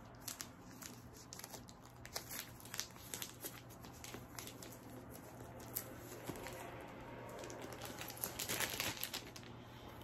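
Plastic wrapping and a padded bubble mailer crinkling and rustling as a boxed CD set is unpacked by hand, with scattered sharp crackles and a louder burst of crinkling near the end.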